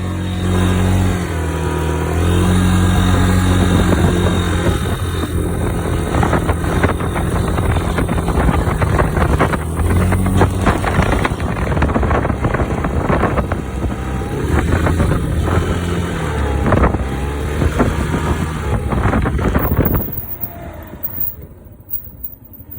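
Yamaha Majesty 125 scooter's single-cylinder engine running under way, its pitch stepping up and down, with wind noise buffeting the microphone. Under it the owner hears a rattle like a vibrating plastic part, which he links to the CVT weight rollers. The sound drops away about twenty seconds in.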